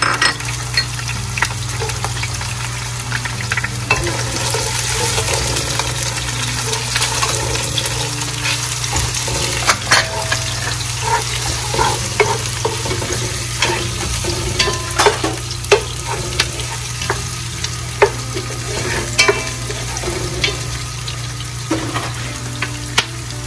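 Minced garlic and sliced red onion sizzling in hot oil in a pot, being sautéed. A wooden spatula stirs through them, with scattered clicks and knocks against the pot.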